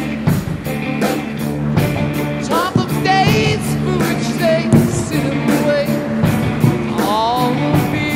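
Background rock music with a steady drum beat, guitar and a singing voice.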